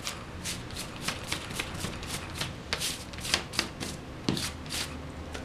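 Small glue roller being worked over glue-coated cardboard, giving an uneven run of short tacky, papery crackles and clicks, a few each second.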